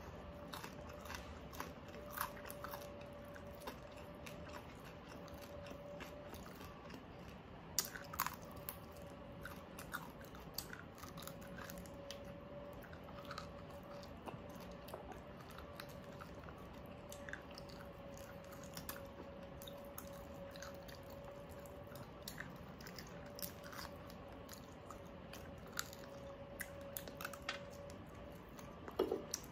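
Close-miked chewing and biting on crispy pata, deep-fried pork knuckle, with scattered small crunches and mouth clicks and a sharper crunch about eight seconds in and again near the end. A faint steady hum underneath.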